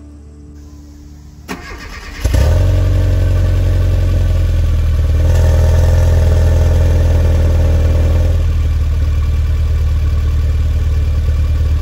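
Rover Mini's A-series four-cylinder engine starting about two seconds in, then running steadily through its newly fitted muffler, the revs rising a little for a few seconds in the middle before settling back to idle. The muffler was replaced because the old one was making an abnormal noise.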